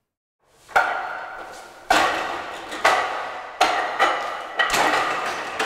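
Wooden dummy (mook jong) on its wooden frame being struck by hand and forearm: about seven sharp wooden knocks at irregular intervals, each ringing on briefly.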